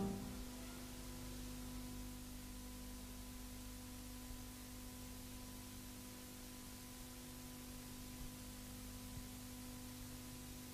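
Faint steady hum and hiss with no other sound; the last notes of a brass band closing tune die away at the very start.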